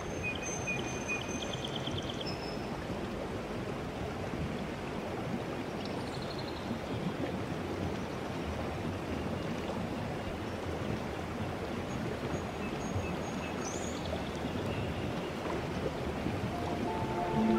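Steady rushing of running water, like a stream, with a few faint high chirps near the start and again about two-thirds of the way through.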